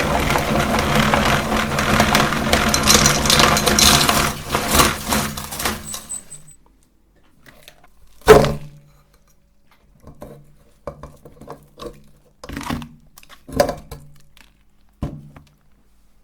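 Electric meat grinder running and crunching hard candy, with a steady motor hum under dense cracking, stopping abruptly about six seconds in. Then come about seven separate short knocks and clinks, several with a brief burst of hum.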